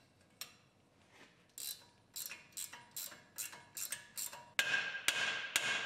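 Ratchet wrench clicking in a steady series of sharp metallic clicks as the upper ball joint nut is unbolted. The clicks grow louder and ring a little near the end.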